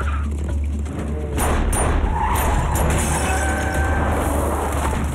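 Pickup truck and motorcycle engines running hard under a steady low rumble, with tires skidding and a few sharp knocks about one and a half to three seconds in.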